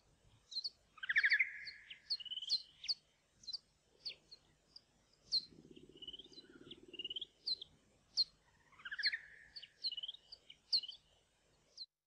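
Bat vocalizations from an ultrasonic recording slowed down into human hearing range: a string of short, sharp chirps, each falling in pitch, with a longer buzzing trill about a second in and another about nine seconds in.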